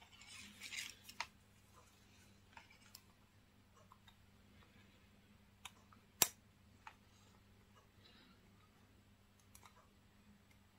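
Hands handling a wristwatch and its leather strap: a brief rustle in the first second, then scattered light clicks and taps, with one sharp click a little past halfway that is the loudest.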